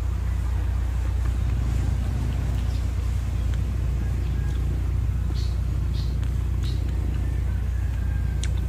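Chewing a firm fresh strawberry: a few faint crisp crunches, spread between about three and seven seconds in, over a steady low rumble.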